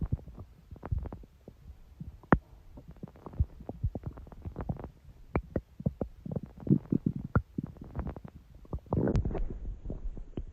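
A person's stomach gurgling and rumbling: many quick, irregular pops and squelches, with longer bubbling gurgles about two-thirds of the way through and again near the end.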